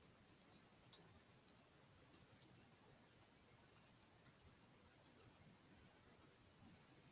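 Faint, irregular keystroke clicks of typing on a computer keyboard, a few keys at a time with short pauses between.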